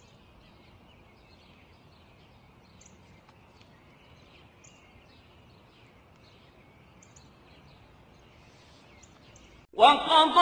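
Faint outdoor ambience with small birds chirping now and then. Near the end a loud chanted Quranic recitation starts suddenly, with long held notes.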